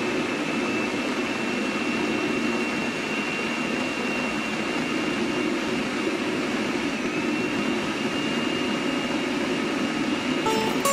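Electric food chopper running steadily, its motor giving a constant high whine while the blade purées boiled raw mango pieces into a smooth paste. It stops near the end.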